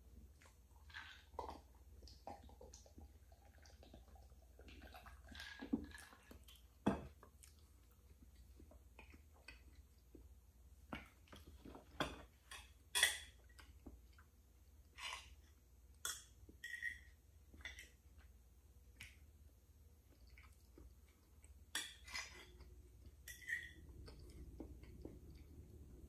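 Scattered faint clicks, taps and clinks of eating: a glass of iced drink lifted and set down, a metal fork tapping the cake and its plate, and soft mouth and chewing sounds between.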